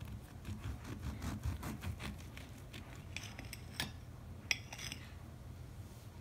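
Serrated table knife sawing back and forth through a soft egg pancake, a quick run of short rasping strokes. In the second half the knife and fork click and scrape against the ceramic plate a few times, the sharpest about four and a half seconds in.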